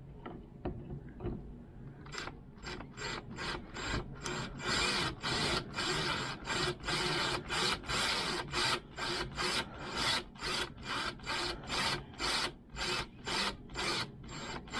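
Doorknob mounting bolts being tightened with a hand screwdriver: a rubbing rasp with each twist, about two a second, starting about two seconds in.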